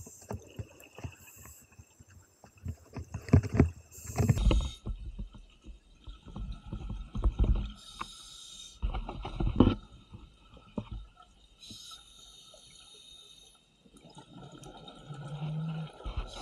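Scuba regulator breathing underwater, sped up: a hissing inhale through the regulator every few seconds, alternating with loud bursts of rumbling, crackling exhaust bubbles.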